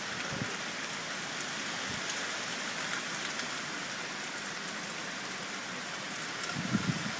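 Steady rain from Hurricane Sandy, an even hiss, with a few low thumps near the end.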